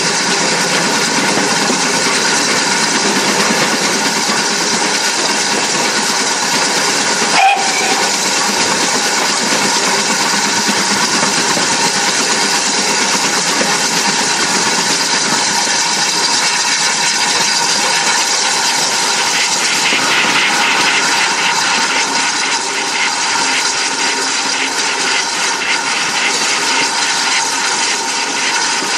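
GWR 4575-class 'Small Prairie' 2-6-2T steam locomotive running, heard from the cab side as a loud, steady hiss of steam and rushing air. A single short, sharp knock comes about seven and a half seconds in.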